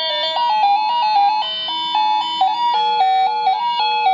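Cheap wireless doorbell chime playing one of its 32 built-in ring melodies: a simple electronic tune of short notes that step quickly from pitch to pitch.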